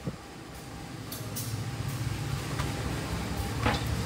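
Train running with a low, steady rumble that builds over the first couple of seconds, with a few brief sharp clicks and squeaks on top.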